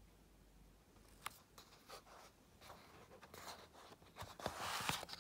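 Paper handling sounds from a picture book: a few light taps and rustles, then a longer paper rustle near the end as the page is turned.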